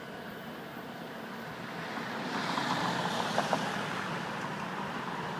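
Road traffic noise that swells about two seconds in as a vehicle passes, then holds steady.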